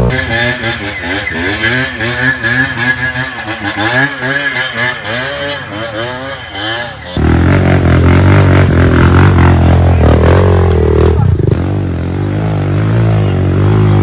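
Dirt bike engines revving up and down in quick throttle blips. About seven seconds in the sound cuts to a louder, steadier low engine note with one short rev.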